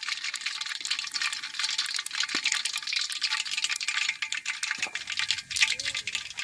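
Hot oil sizzling in a large iron kadai, a steady hiss full of fine crackling pops.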